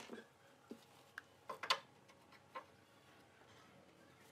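A handful of light, sharp clicks and knocks, with a small cluster about a second and a half in, then quiet: workshop handling of wooden frame parts and a metal bracket.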